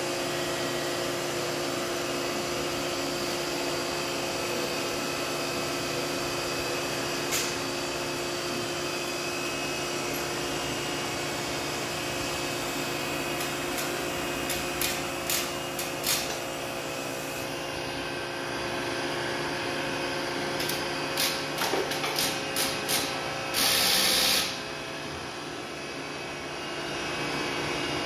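Surface grinder running steadily with a hum of fixed tones from its motor and spindle. A scattering of sharp clicks comes in two clusters partway through and near the end, followed by a loud hiss lasting about a second.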